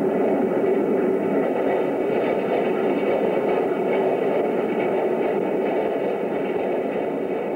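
Steam-hauled train in motion: a steady rushing rumble without distinct exhaust beats.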